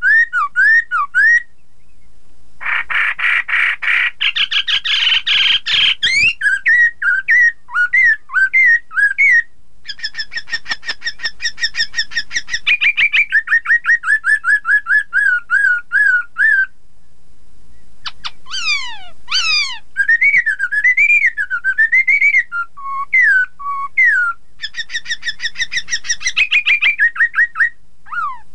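Black-throated laughingthrush singing: a long, varied run of loud whistled phrases made of fast repeated notes and rapid trills. After a brief pause past the middle come several steep falling whistles.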